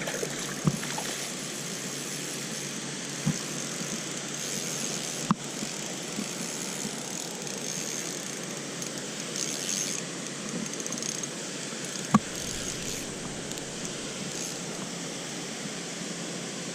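Steady rush of running stream water, with four short sharp knocks, the loudest about twelve seconds in.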